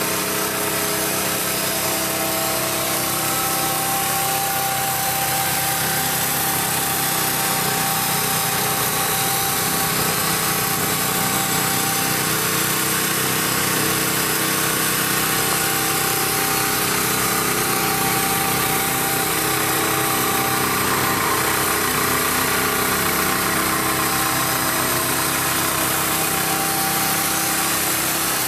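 Small gasoline engine on a vacuum plate lifter running steadily at constant speed, driving the lifter's vacuum pump while it holds a heavy steel street plate.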